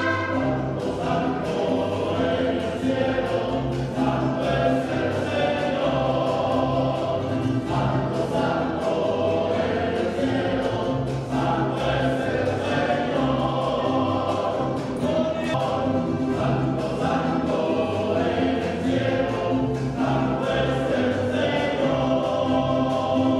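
A choir singing a hymn with instrumental accompaniment.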